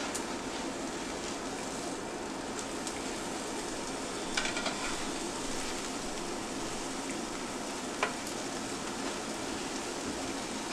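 Eggs sizzling steadily in a little olive oil in a nonstick frying pan, with a few light knocks of a nylon spatula against the pan as the folded egg is cut and moved, the clearest about four seconds in and again about eight seconds in.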